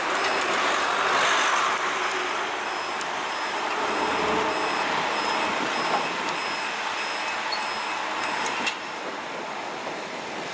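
Heavy machinery running as a steady noisy wash, with a faint high beep repeating about one and a half times a second, like a reversing alarm.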